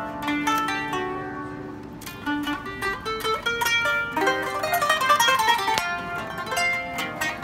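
Solo kanun (Turkish plucked zither) played with finger picks, unaccompanied. A few ringing notes fade away at first, then from about two seconds in a quicker plucked melody picks up, with a fast flurry of high notes just past the middle.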